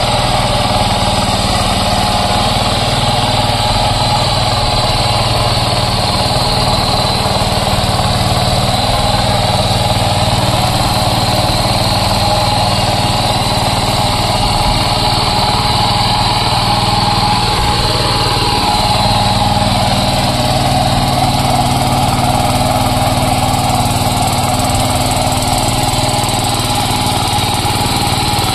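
A 7 hp mini power tiller's small engine running steadily, with a brief rise and fall in pitch about two-thirds of the way in.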